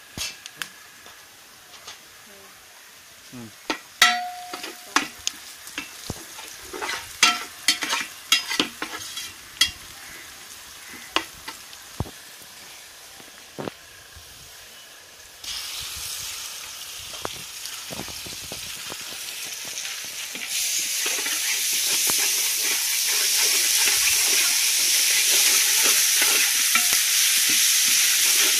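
Sliced onions frying in oil in an aluminium pot, with scattered metal clinks and knocks in the first half. About halfway the oil's sizzle rises into a steady hiss, louder again from about two-thirds in, as the mixture is stirred with a ladle.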